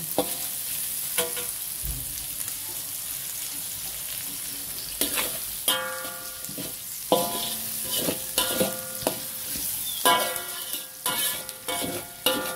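Shallots, garlic, ginger, lemongrass and chillies sizzling in hot oil in a metal wok while they are sautéed to wilt. A metal spatula scrapes and knocks against the pan, which rings after each stroke. After a stretch of sizzling, the strokes come in quick clusters from about five seconds in.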